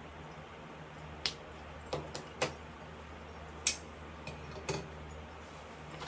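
Steady low hum of an electric fan, with about seven light clicks or taps scattered through the middle, the sharpest about three and a half seconds in.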